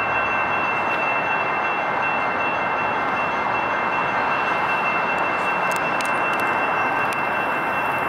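Railroad crossing warning bells ringing steadily as the gate arms come down, signalling an approaching train.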